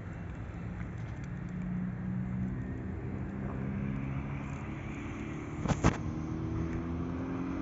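Italian electric trains running slowly through the station with a steady low hum. A rising whine comes in over the last couple of seconds, and two sharp knocks sound about six seconds in.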